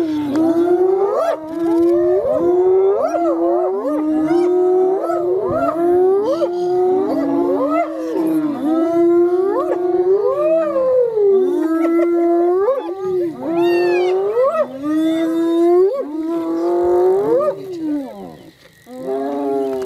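Spotted hyenas calling almost without pause over a kill: several overlapping wailing, whooping calls that rise and fall in pitch, easing off briefly near the end.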